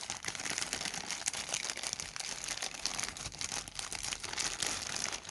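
Plastic toy packaging crinkling continuously as it is handled and opened to take out the toy's parts.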